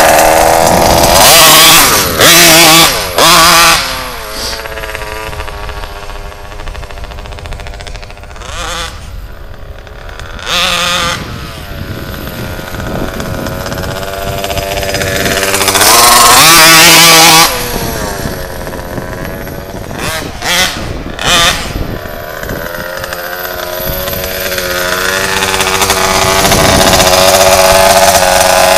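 RCMAX 90cc two-stroke engine in an HPI Baja RC buggy, revving hard in short full-throttle bursts, then fading with distance. It comes back loud with a fast pass about sixteen seconds in, its pitch sliding as it goes by, and grows louder again near the end as the car comes back close.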